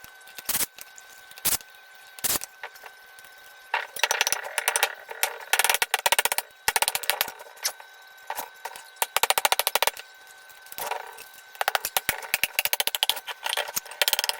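Metal clicking and rattling from hand tools working on a Kohler CV16 engine's crankcase: a few single sharp knocks, then repeated bursts of rapid clicks.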